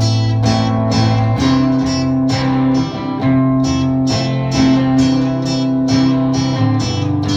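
Acoustic guitar strumming chords in a steady rhythm, about two strums a second, the chord changing every second or so.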